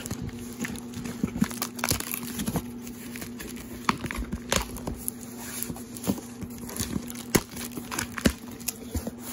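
Cardboard shipping box opened by hand: packing tape tearing away from the cardboard and the flaps rustling and scraping, in an irregular series of sharp crackles and taps. A faint steady hum runs underneath.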